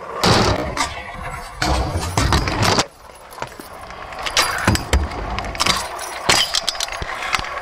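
Stunt scooter's small wheels rolling over concrete with a metallic rattle from the deck and bars, loudest in the first three seconds, then several sharp clacks of the scooter landing on concrete in the second half.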